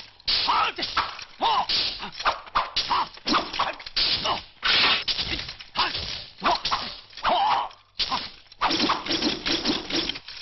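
Kung-fu film fight sound effects: a rapid, uneven stream of punch and kick impacts and whooshes of swung limbs and weapons.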